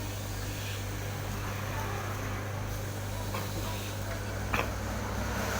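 Steady low electric hum with a single sharp click about four and a half seconds in.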